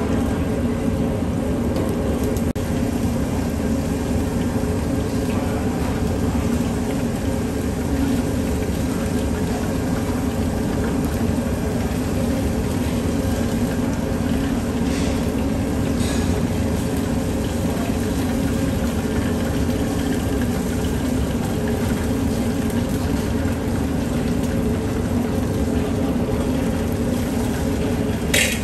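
Steady kitchen hum and rushing noise, with a few short sharp clatters about halfway through and near the end.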